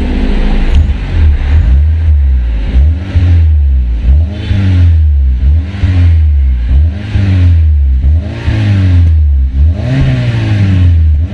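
Exhaust note of a Honda Civic FD through an axle-back exhaust with the resonator deleted and a chambered muffler, its engine revved again and again, about once a second, each blip rising and falling in pitch over a deep rumble.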